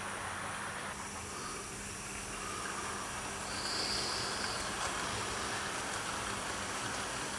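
OO gauge model trains running on the track: a steady whirr and rumble of motors and wheels on the rails, with a faint steady hum and a brief high tone near the middle.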